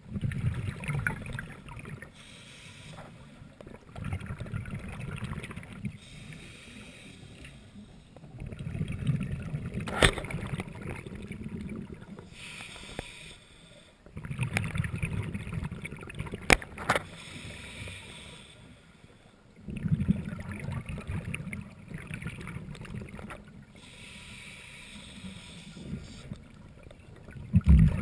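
Scuba regulator exhaust bubbles, heard underwater. They come as low rumbling bursts two to three seconds long, about every five seconds, with each exhaled breath. Two sharp clicks, near the middle, are the loudest single sounds.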